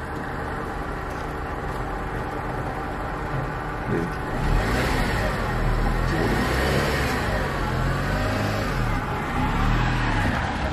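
Car engine running under a learner driver, the revs rising and falling unevenly several times from about four seconds in over a steady engine hum.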